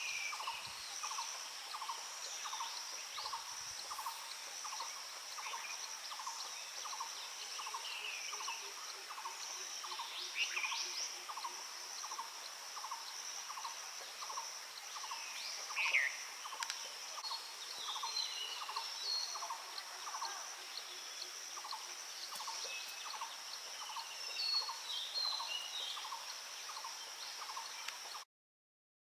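Several wild birds chirping and calling, with short scattered notes. Behind them are a steady high drone and a note repeating about two or three times a second. The sound cuts off suddenly near the end.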